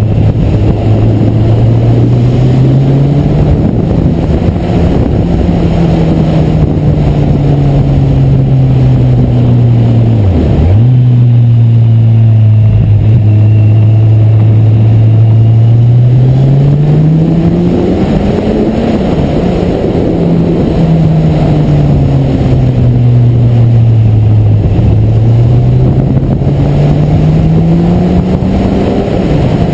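Kawasaki Z1000SX's 1043 cc inline-four engine running under way, heard from on the bike, its pitch rising and falling with the throttle and dropping sharply twice for a moment. Wind and road noise rush underneath.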